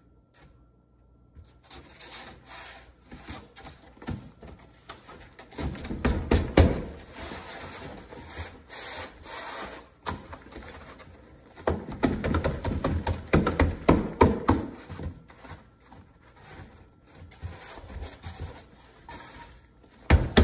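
Rigid foam board panel rubbing and scraping against the seat frame as it is pushed and worked into a tight fit, in uneven stretches of scraping with small knocks, loudest about six seconds in and again between twelve and fifteen seconds in.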